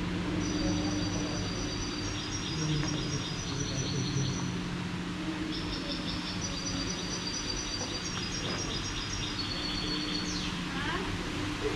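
High-pitched chirping in rapid trills, coming in repeated phrases a few seconds long, with one falling whistle near the end, over a steady low hum.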